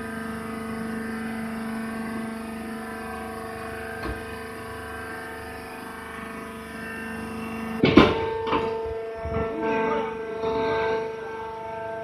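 Hydraulic baler's power unit, an electric motor driving the hydraulic pump, running with a steady hum. About eight seconds in comes a loud clank, followed by a few lighter knocks.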